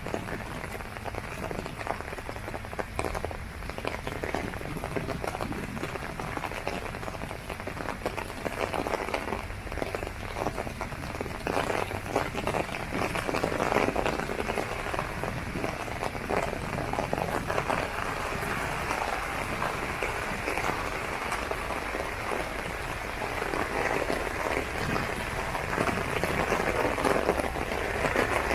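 Steady rain falling on an open umbrella, a dense continuous patter of drops that grows louder about halfway through.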